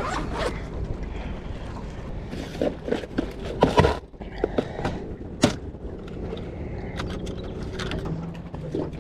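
Scattered small clicks, knocks and scrapes of fishing gear being handled in a boat, over a steady low hum.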